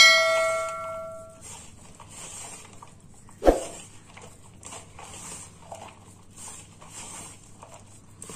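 A stainless steel mixing bowl rings from a sharp strike at the start, the ring fading over about a second and a half. A dull knock comes about three and a half seconds in. Between and after them, fingers rub and scrape a dry cornflour and spice mix against the bottom of the bowl in soft, repeated strokes.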